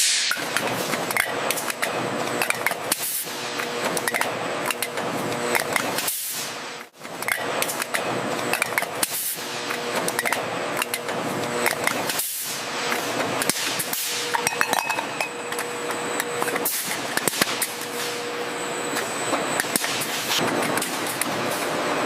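Factory machinery running, with dense clattering and clinking and a faint steady hum; the sound drops out briefly about seven seconds in.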